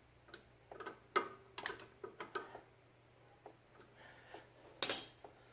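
Wrench clicking and clinking on a brake hose fitting as it is snugged down: a run of irregular, lightly ringing metal clicks, a pause, then one sharper, louder click near the end.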